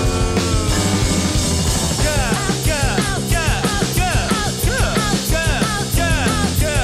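Rock band playing live: dense guitars, bass and drums. From about two seconds in, a lead line of quick swooping pitch bends repeats over the band.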